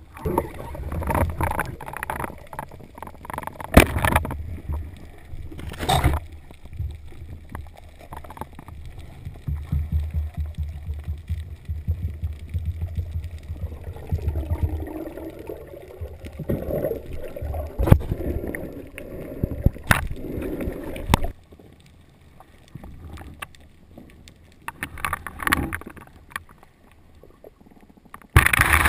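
Underwater sound picked up through a camera's waterproof housing: muffled, uneven water rushing and gurgling, with a few sharp knocks. It goes quieter about two-thirds of the way through and swells up again near the end.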